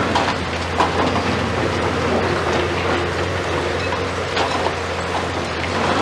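Komatsu PC490 long-reach demolition excavator's diesel engine and hydraulics running steadily while its crusher jaws break concrete at the top of a tower, with irregular cracks and clatter of breaking concrete, a sharp one about a second in.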